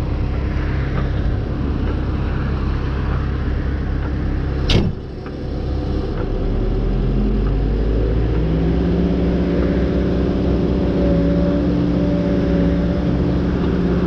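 Diesel engine of a Tigercat T234 knuckleboom loader rig running steadily, with a single sharp clack about five seconds in. After it the engine settles into a steadier, slightly louder tone.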